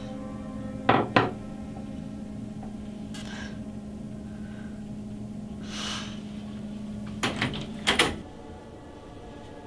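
Knocking on a door: two quick sharp knocks about a second in, then another cluster of three or four knocks about two seconds before the end, over a steady low hum that stops just after them.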